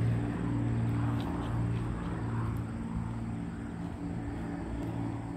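Steady low engine hum at a constant pitch, a motor running without revving.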